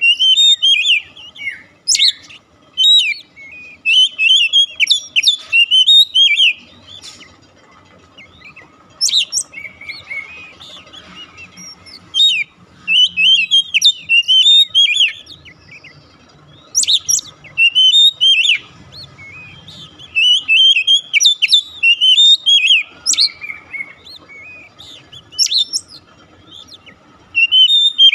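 Oriental magpie-robin (kacer) in full song: bouts of loud, rapid, varied whistles and sharp chirps, each lasting a few seconds, with short pauses between them.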